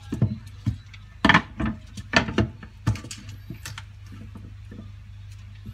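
Knife and garlic cloves knocking and tapping on a wooden cutting board, a quick run of sharp knocks in the first three and a half seconds, then a few fainter taps. A steady low hum runs underneath.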